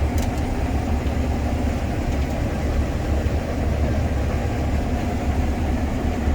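Case IH 7140 Axial-Flow combine harvester running steadily: a deep, even engine rumble under a constant mechanical drone.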